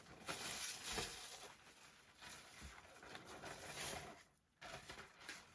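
Faint water sloshing and wet-sheet handling sounds in a shallow bath tray as a soaked comic book, covered with a Reemay polyester sheet, is turned over, with a brief break near the end.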